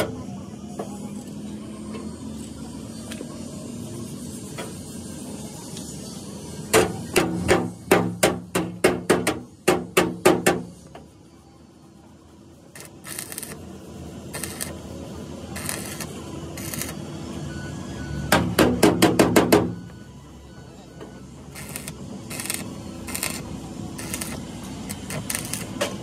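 Hammer blows on metal in two rapid bursts, one from about 7 to 11 seconds in and a shorter, faster one near 18 to 20 seconds, with scattered lighter taps between: hand work on a bus body's metal.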